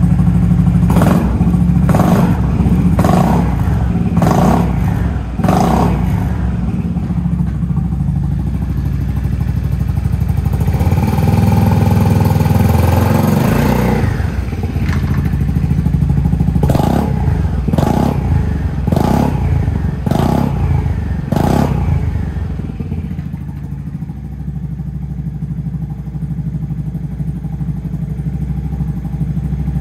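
Honda Forza Z (MF08) scooter's single-cylinder engine running through an aftermarket muffler, idling with throttle blips. It gives about five quick revs in the first six seconds, a rev held for about three seconds around the middle, and another run of about five quick revs. It then settles back to a steady idle.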